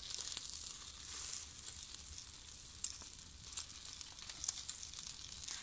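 Bluefish sizzling in a wire grill basket over hot charcoal embers: a steady soft hiss with a few small crackles.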